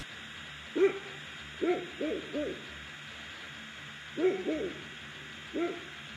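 An animal calling in short hooting notes, singly and in quick runs of two or three, over a faint steady hiss.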